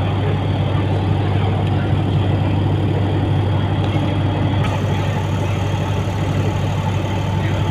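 Steady running noise heard inside a moving passenger train coach: wheels rumbling on the rails under a constant low hum.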